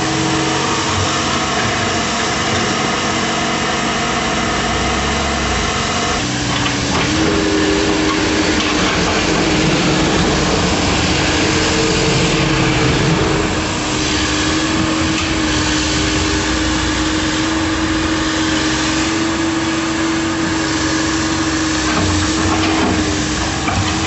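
An engine running steadily, a constant hum with a held tone that steps to a slightly different pitch about six to seven seconds in.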